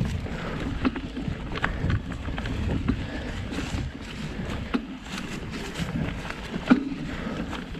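Surly Krampus 29+ mountain bike riding up a rocky trail: a steady rumble of the tyres over dirt and stone, with scattered clicks and rattles from the bike, one sharper knock near the end, and wind on the microphone.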